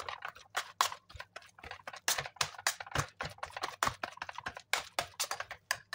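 Boiled potatoes being mashed with milk and butter in a stainless steel saucepan: a quick, irregular run of soft knocks and clicks, several a second, as the masher presses through the potato and strikes the pan, working the mash smooth.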